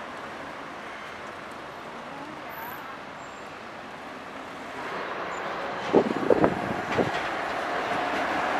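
An SSB GT4 tram approaching on street track over city traffic noise, growing louder through the second half. About six seconds in, a quick cluster of heavy clunks from its wheels on the rails, then a steady whine near the end.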